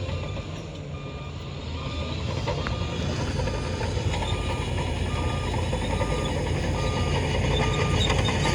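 Reversing alarm on a heavy diesel machine beeping steadily, a little more than once a second, over the low rumble of its engine, which grows gradually louder.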